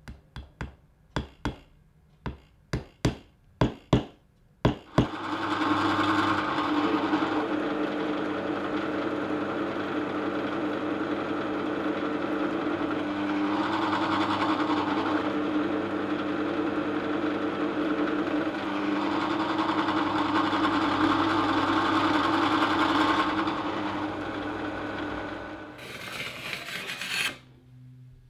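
A small hammer tapping about a dozen times in quick succession on a Rocklite Ebano fretboard. Then a bench drill press runs steadily, louder in a few stretches as its small bit cuts into the fretboard, and stops near the end, followed by a brief scrape.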